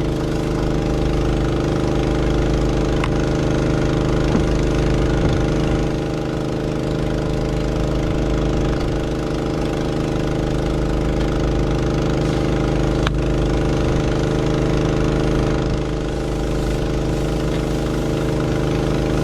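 Large farm diesel engine running steadily: an even, dense drone with a low rumble, and a couple of faint clicks.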